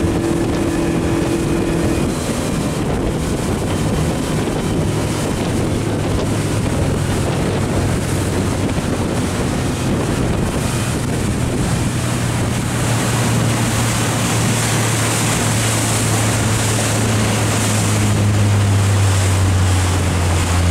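Motorboat engine running under way, with wind buffeting the microphone and choppy water rushing past the hull. About two seconds in, a higher engine tone gives way to a lower hum that grows stronger toward the end.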